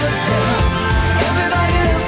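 Pop-rock background music with a steady drum beat and a melody line.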